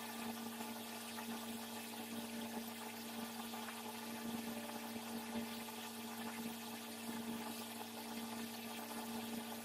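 Room tone: a steady, unchanging hum with faint background hiss and no distinct tool sounds.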